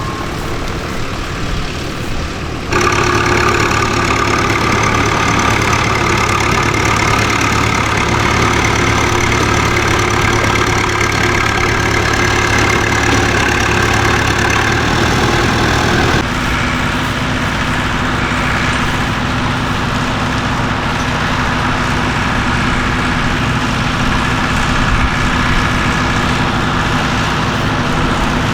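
Tractor engines running steadily. The engine sound gets abruptly louder about three seconds in and changes pitch suddenly about halfway through.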